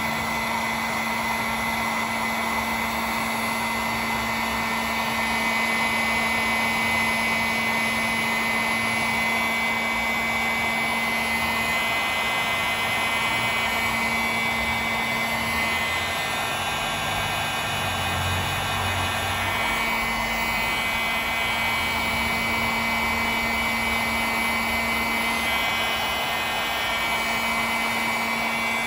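Electric heat gun running steadily on its heat setting, its fan blowing with a low hum and a high whine, as it shrinks heat-shrink butt connectors on the stator wires.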